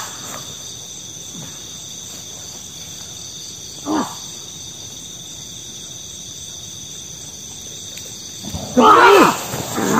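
Men's short, loud yelled shouts: a brief one about four seconds in and a longer, louder one near the end. Under them runs a steady chorus of crickets.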